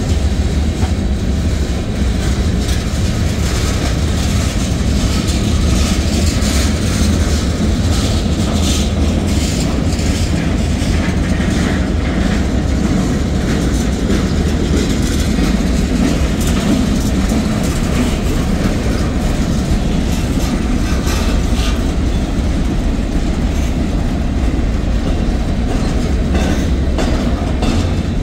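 Freight cars of a mixed manifest train rolling past: a steady low rumble of steel wheels on rail, with clicks and clacks as the wheels cross rail joints.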